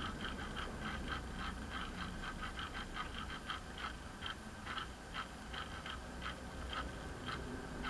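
Motorized display turntable turning, giving short high ticks or chirps several times a second over a low hum, coming less often in the second half.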